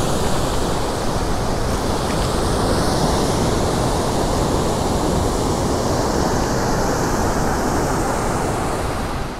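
Water rushing steadily through a dam spillway under strong pressure, a continuous even rush without a break.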